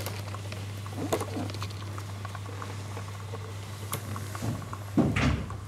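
Cats moving in and around a cardboard box, with scattered light taps and scrapes on the cardboard. A louder, brief low sound comes about five seconds in, over a steady low hum.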